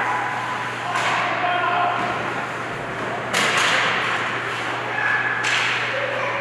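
Ice hockey play in a rink: skate blades scrape the ice in two sudden hissing bursts, one a little past halfway and one near the end. There is a knock about a second in and faint shouts from players, over a steady low hum of the arena.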